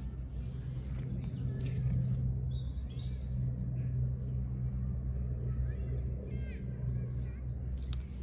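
Small birds chirping intermittently over a steady low hum, with a couple of faint clicks near the start and end.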